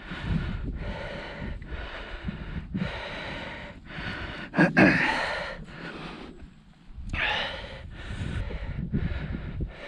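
A person breathing hard and fast through the mouth from the exertion of climbing a steep rock pinnacle, in quick regular breaths with a louder puffing exhale about halfway through and a short pause soon after.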